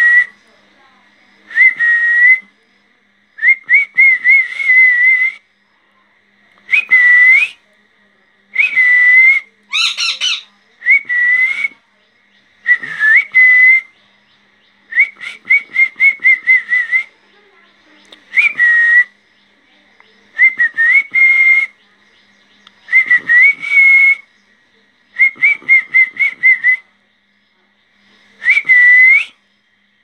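Young rose-ringed parakeets calling in repeated bouts of rapid, stuttering chatter, roughly one bout every two seconds with short quiet gaps between. A higher-pitched call comes about ten seconds in.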